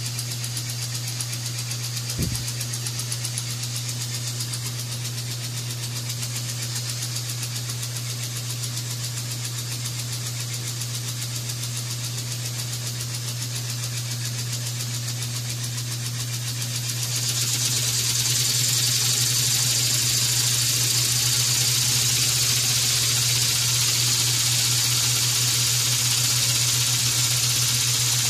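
Small hobby steam engine running on steam from a miniature boiler: a steady fast beat under a hiss of steam. About two-thirds of the way through the hiss grows louder and the whole sound gets louder; a single knock sounds about two seconds in.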